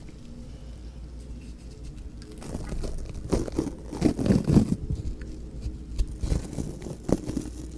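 Close-miked ASMR sounds: irregular soft crunching and crinkling right at the microphone, faint at first and busier from about two and a half seconds in.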